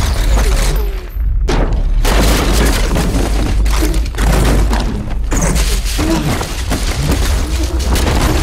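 Film sound effects of a street exploding: repeated booms over a deep continuous rumble, with debris crashing and wood and glass shattering. After a brief dip, a fresh blast hits about a second and a half in.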